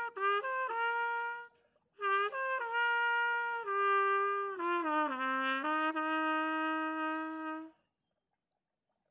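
Trumpet played solo: a short phrase of held notes, a break of about half a second, then a longer phrase that steps down in pitch and stops shortly before the end.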